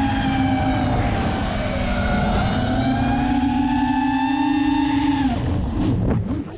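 Brushless motors and propellers of a small FPV racing quadcopter, heard from its onboard camera: a steady, pitched whine over a rushing rumble, drifting gently in pitch. Near the end the whine drops sharply and swoops back up as the throttle is cut and punched again.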